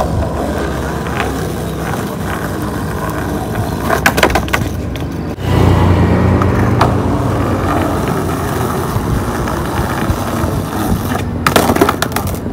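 Skateboard wheels rolling over rough concrete with a continuous rumble that grows louder from about five seconds in, as the board comes closer. There are sharp wooden clacks of the board twice, about four seconds in and again near the end.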